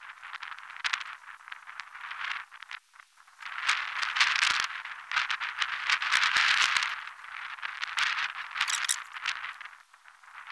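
A woven-stick basket fish trap creaking, rattling and rustling as it is handled, with irregular scraping and clicking. The sound is loudest in the middle stretch.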